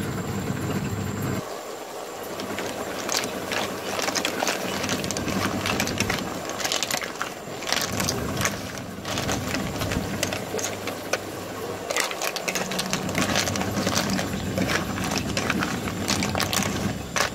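Snails in their shells being stir-fried in a sizzling sauce in a metal wok: the shells clatter and knock as a wooden spatula scrapes through them. A low steady hum runs underneath at the start and again in the second half.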